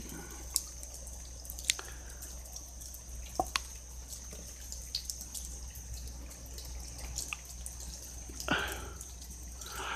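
Rainwater dripping in scattered, irregular drops, a few sharper than the rest, over a faint steady hiss. A short breathy rush near the end.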